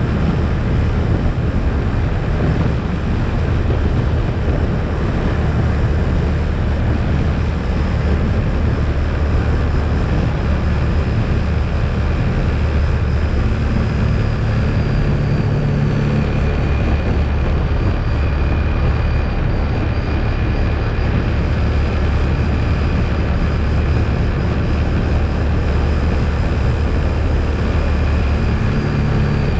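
ATV engine running steadily under way, with a deep hum and its engine note shifting a couple of times.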